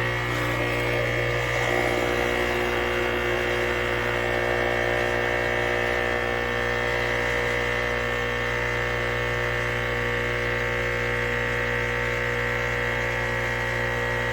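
ChefWave Káva capsule espresso machine's pump running with a steady hum, pushing water through while the brew button is held down to program the cup's water level.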